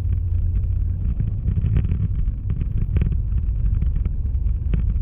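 Steady low rumble of a vehicle driving, heard from inside its cabin, with scattered light clicks or rattles over it.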